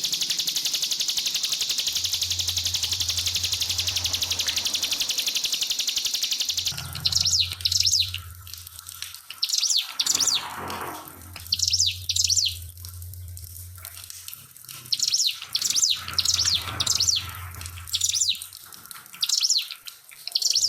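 Ciblek pinus, a prinia, singing in short rapid high-pitched bursts, about ten phrases with brief pauses between them. For the first six or seven seconds, before the song begins, there is only a steady trickling-water hiss with a low hum.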